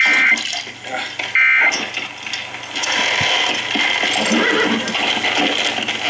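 Emergency Alert System end-of-message data bursts: two short, harsh digital buzzes, one at the start and one about a second and a half later, marking the close of the severe thunderstorm warning. From about three seconds in, a steady hiss with faint scattered sounds follows.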